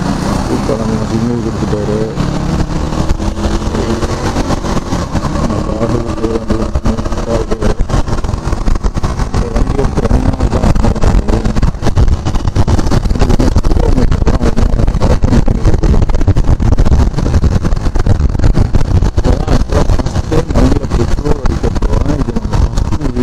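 KTM Duke 390's single-cylinder engine running under way, its pitch rising and falling through the first half. From about halfway, louder wind buffeting on the microphone takes over.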